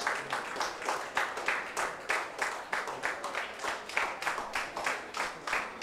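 A small group of people clapping, with evenly spaced claps at about two a second.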